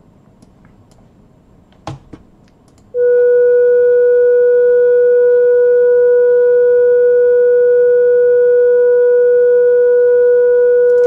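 A click about two seconds in, then a loud, steady 488 Hz test tone from an online tone generator played through a computer monitor's built-in speaker, with fainter higher overtones above it.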